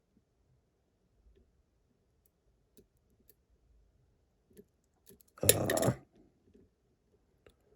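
Faint, scattered clicks of lock-picking tools working inside a Miwa magnetic cam lock, with one loud clatter lasting about half a second a little past halfway.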